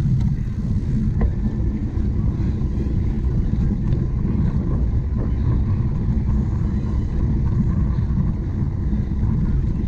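Steady low rumble of wind buffeting the microphone of a camera moving with a cyclocross bike, with a few faint knocks.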